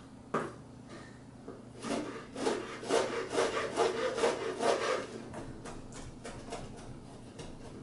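Chef's knife mincing a soft chipotle pepper on a plastic cutting board: a run of quick knife taps and scrapes on the board, busiest between about two and five seconds in and lighter after.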